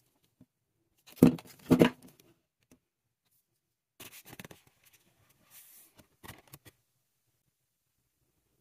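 Toy packaging being handled and opened. There are two loud crinkling crackles of the plastic wrapping about a second in, then softer rustling of a paper leaflet as it is unfolded.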